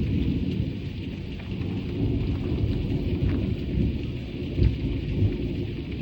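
Thunder rumbling over steady heavy rain, with two short low booms near the end.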